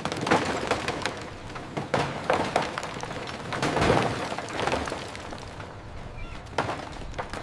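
Debris-clearing and demolition work: a continuous clatter of irregular knocks, cracks and breaking sounds.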